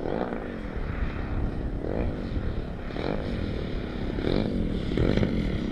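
The engine of a giant-scale Extra 330SC radio-control aerobatic plane runs in flight, its pitch swelling and falling several times as the throttle and the plane's passes change. Wind rumbles on the microphone underneath.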